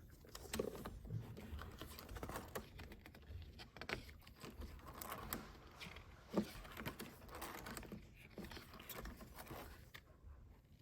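Desk calendar being handled, its paper pages turned: irregular light clicks and soft paper rustles.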